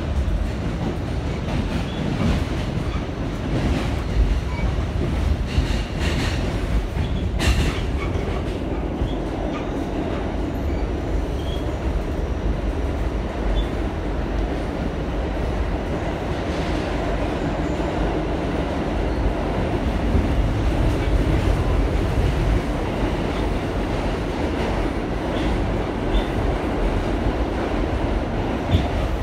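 New York City subway car on the A line, heard from inside while it runs between stations: a steady low rumble of wheels and running gear. Scattered clicks over rail joints, with one sharp, loud clack about seven seconds in.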